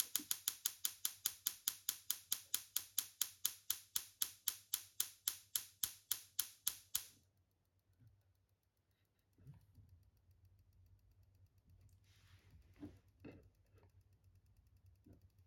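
Small Tesla coil firing sparks in a regular train of sharp clicks, about five a second, that stops abruptly about seven seconds in. Afterwards only faint, irregular handling rustles and soft taps are heard.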